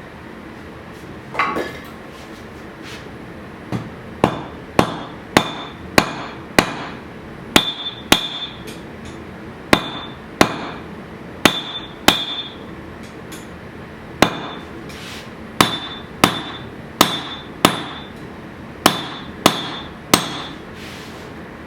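Hammer blows on steel at an anvil, forging the 15n20 high-carbon blade. The strikes come in irregular runs of about two a second with short pauses, many ending in a brief bright ring.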